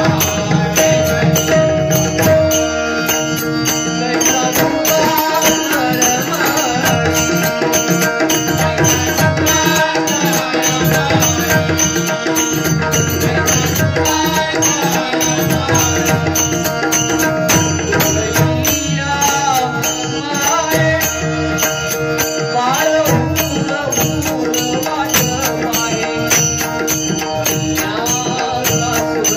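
Live Marathi devotional bhajan: a male singer's voice over a steady harmonium drone, with drum beats and the regular clash of small hand cymbals keeping the rhythm. This is the closing Bhairavi that ends the session.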